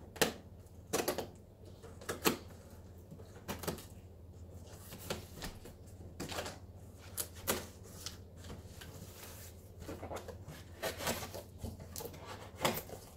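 A blade slitting the packing tape on a cardboard shipping box: irregular short scrapes, rips and taps on the cardboard, over a steady low hum.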